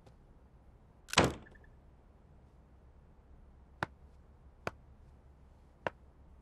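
A wooden room door shuts with a loud thud and latch click about a second in, followed by three short sharp ticks about a second apart.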